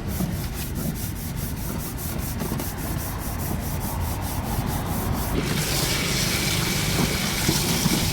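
Rhythmic scraping or rubbing strokes, about five a second, giving way about five seconds in to a steady hiss.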